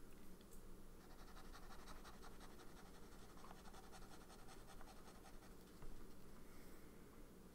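Kakimori dip nib scratching rapidly back and forth across notebook paper as it lays down a wide ink swatch. The scratching is faint and continues for several seconds, then stops near the end.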